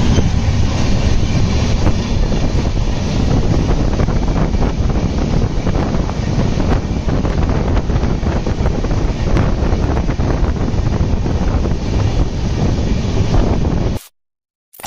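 Moving passenger train heard from an open coach window: a steady rumble of the running train with wind buffeting the microphone. It cuts off suddenly near the end.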